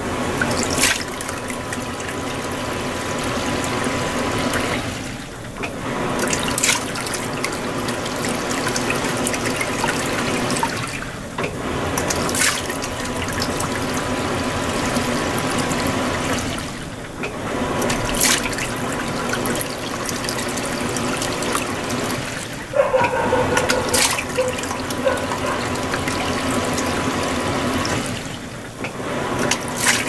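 Panasonic NA-FS160P3X 16 kg top-loading washer in its Super Delicado wash phase: water churning and sloshing in the tub over a steady motor hum. It stops briefly about every six seconds and then starts again.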